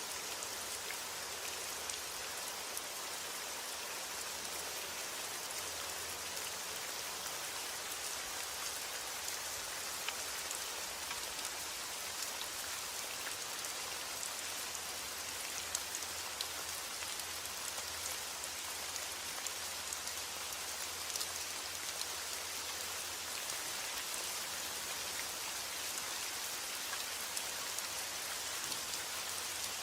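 Steady heavy rain: an even hiss dotted with many small drop ticks, with no thunder.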